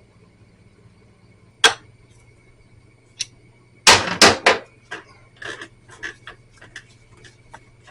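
Metal hand tools knocking and clinking on a motorcycle engine while a rotor puller is worked: a single sharp knock, then a cluster of three loud clanks about four seconds in, followed by a run of lighter ticks.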